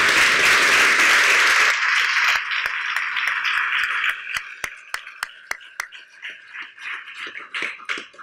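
Audience applauding: a dense patter of clapping at first, thinning after about two seconds into scattered single claps that die away near the end.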